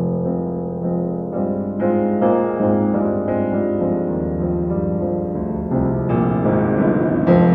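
Background piano music: slow, sustained chords, with new notes coming in every second or so and a fuller, louder chord near the end.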